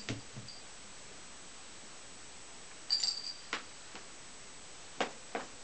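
Kittens at play on a vinyl floor: scattered light taps and clicks, with a brief high ring about three seconds in.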